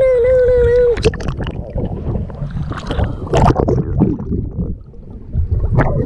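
A child's voice holds one long note for about the first second, then cuts off. After that, water splashes and sloshes against a camera riding at the water's surface as the float is pulled along.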